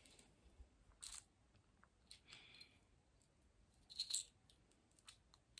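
Near silence, broken by a few faint, brief clicks and rustles about a second in, around two and a half seconds in, and about four seconds in.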